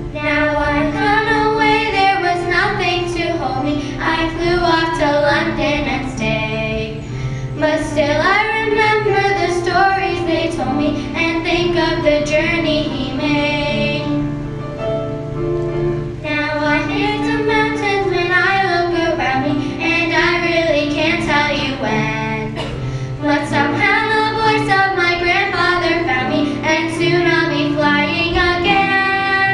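Children's choir singing a song with music.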